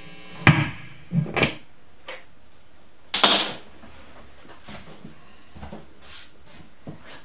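Handling noises: a few light knocks and clunks in the first two seconds, then a louder short scraping rustle about three seconds in, as someone gets up from a chair holding a guitar. Low room noise after that.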